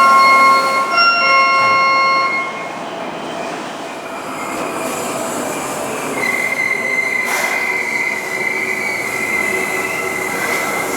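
Seibu Kokubunji Line electric train moving at the station platform: a steady pitched whine for the first two seconds or so, then running noise with a steady high wheel squeal from about six seconds in.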